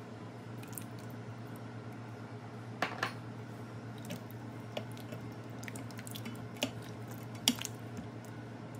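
Coconut milk spooned into a stainless steel pot of vegetable stew and stirred in with a silicone spatula: a few light clicks and knocks of the utensils against the pot, the sharpest near the end, over a steady low hum.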